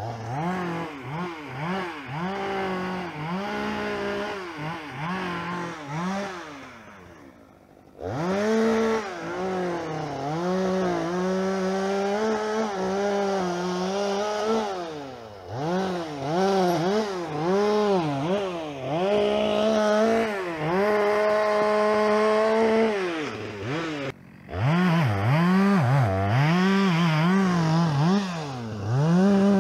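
Two-stroke chainsaw running at high revs while cutting wood, its pitch repeatedly sagging and picking back up. It dies down about six seconds in and is back at full speed about two seconds later, with another short drop near the 24-second mark.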